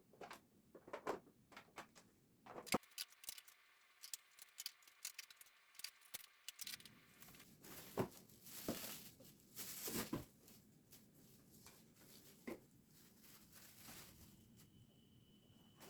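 Kitchen handling sounds: a run of light clicks and taps, then longer rustling, crinkling swells as if packaging or plastic is handled.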